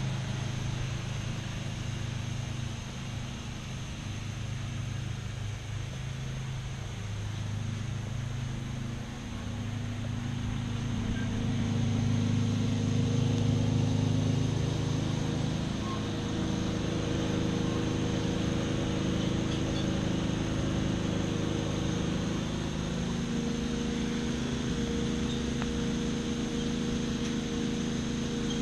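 1996 Craftsman lawn mower's engine running steadily. It grows louder about ten seconds in, then holds at that level.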